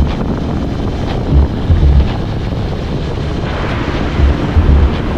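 Wind buffeting the microphone on a moving motorcycle, a steady rush with irregular low thumps of gusts, over road and engine noise.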